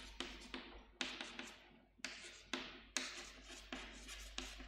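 Chalk writing on a chalkboard: a faint run of sharp taps and short scratchy strokes as letters are written.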